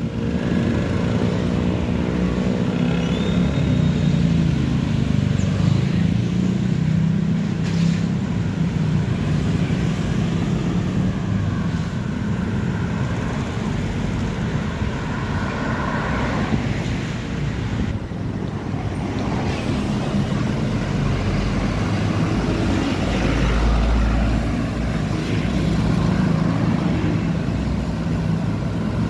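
Steady road noise of motor traffic on a city street, with car and motorcycle engines passing.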